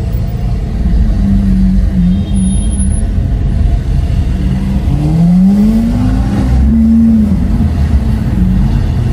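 Lamborghini Aventador SV's V12 through a Capristo exhaust, running steadily at low revs. About five seconds in the revs rise briefly, then drop back about a second later.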